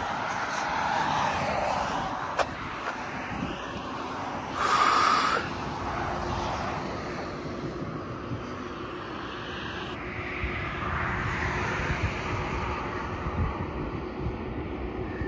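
Steady road traffic noise, with one louder passing swell about five seconds in and a faint steady hum later on.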